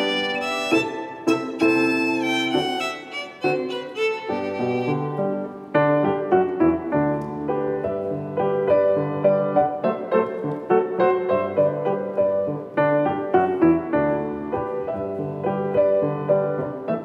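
A violin plays a melody over grand piano accompaniment. About six seconds in, the violin drops out and the Boston grand piano carries on alone.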